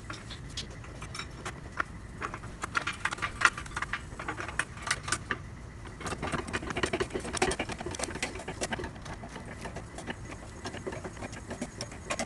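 Hydraulic floor jack being positioned and pumped to lift a car: a run of irregular metallic clicks and clanks.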